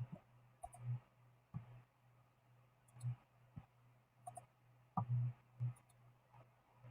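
Computer mouse clicking: scattered single and double clicks with a few soft low thuds, over a faint low hum.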